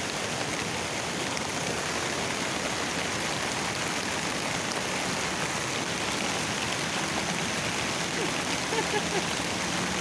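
Steady rush of a waterfall, falling water pouring without a break.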